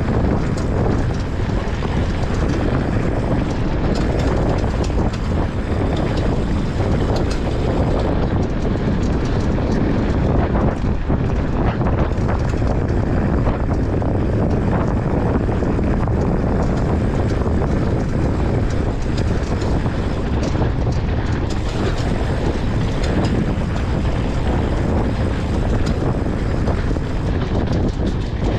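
Wind buffeting the microphone of a camera on a moving mountain bike, a loud steady low rush with scattered short clicks and rattles from the bike.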